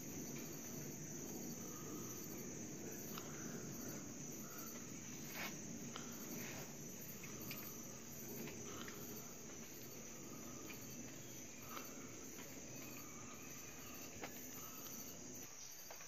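Insect chorus in tropical forest: a continuous high-pitched trilling drone, with a few short faint calls and scattered clicks over it.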